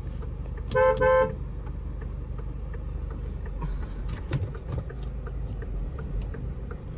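Car horn giving two quick toots about a second in, over the low, steady rumble of an idling diesel engine heard from inside the cabin. A few small clicks follow.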